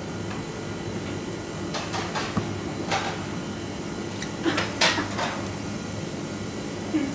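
Steady low hum of kitchen machinery, with a few short scuffs and knocks of handling, the loudest about five seconds in.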